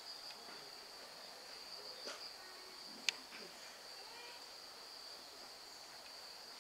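Insects trilling steadily and continuously in one unbroken high-pitched tone, with a single sharp click about three seconds in.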